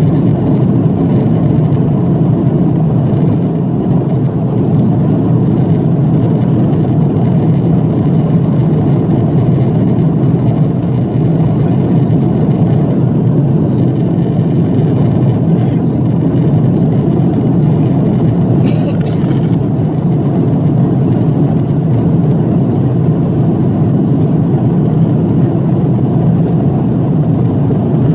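Steady cabin noise inside an Airbus A340-300 climbing after takeoff: the deep, even drone of its four CFM56-5C turbofans and the rush of air along the fuselage, heard through the cabin wall.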